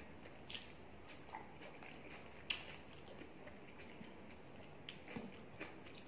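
Quiet, scattered wet clicks and smacks of eating rice and chicken curry by hand, fingers squishing the rice and gravy on the plate, with one sharper click about two and a half seconds in.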